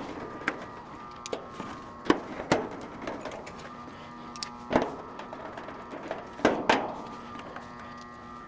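Scattered sharp clicks and knocks of parts and tools being handled, the loudest about two seconds in, near five seconds and twice near seven seconds, over a steady mechanical hum.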